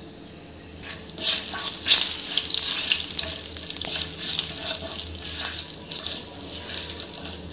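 Fennel seeds and a cinnamon stick sizzling and spluttering in hot oil as they are stirred with a wooden spatula. The hiss starts about a second in, with fine crackling pops throughout.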